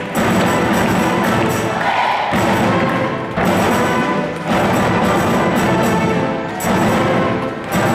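Youth orchestra of strings and winds playing loudly in a concert hall, in short phrases with brief dips between them.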